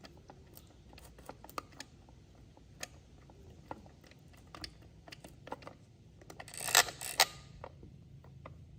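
Scattered light clicks and taps of fingers handling a small plastic doll and pressing modelling dough, with a louder flurry of clicks and rustling about two-thirds of the way in.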